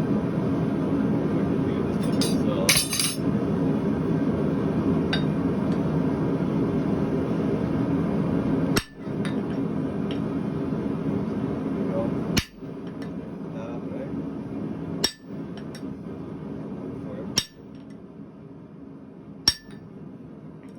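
A few ringing metallic hammer strikes on steel about two and a half to three seconds in, with a fainter one a couple of seconds later. A steady rushing background noise runs under them and drops abruptly in level several times.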